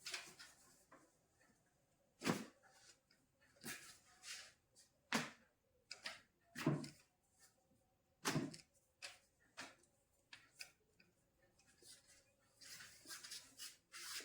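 Short, irregular knocks and thuds, about a dozen spread a second or so apart, from hands handling a patient's body on a treatment table during manual therapy.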